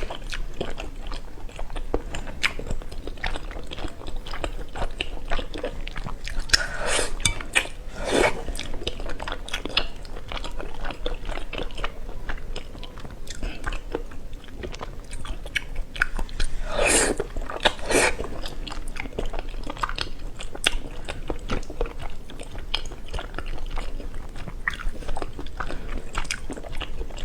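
A person eating close to the microphone: steady chewing and biting with many small wet clicks, and a few louder bites standing out about a quarter of the way in and again a little past the middle.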